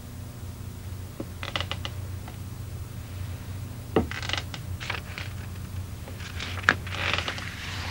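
Irregular creaks and sharp clicks, the loudest about four seconds in and near the end, over a steady low hum.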